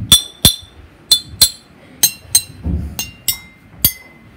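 A metal spoon strikes glass bottles holding different amounts of water, about nine clinks mostly in pairs, each ringing briefly. The ringing pitch steps lower from bottle to bottle, because the bottles with more water give the lower pitch.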